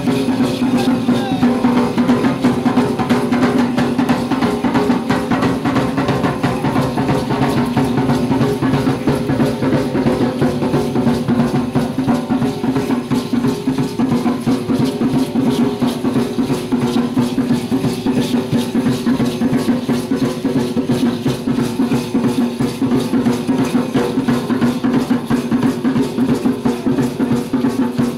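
Live music for a danza azteca performance: a steady drumbeat with rattling percussion over sustained pitched notes, unbroken throughout.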